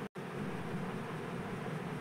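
Steady, even background hiss with no distinct events, broken by a very brief dropout just after the start.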